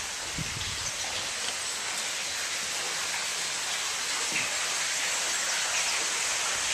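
Steady rush of flowing water, an even hiss with no pauses or strokes.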